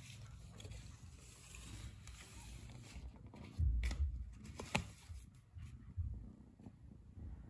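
Handling noise: a low rumble with a cluster of heavier low bumps about three and a half seconds in, the loudest part, and a few sharp clicks a second and two seconds later.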